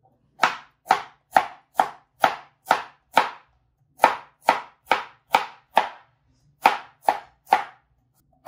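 Kitchen knife chopping peeled carrots on a cutting board: sharp, even strokes about two a second, in three runs with two short pauses between them.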